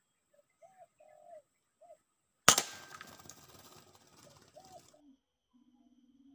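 Short bird calls, then a single sharp shot from a PCP bullpup air rifle about two and a half seconds in, the loudest sound, trailing off over about two seconds. Lower bird calls start again near the end.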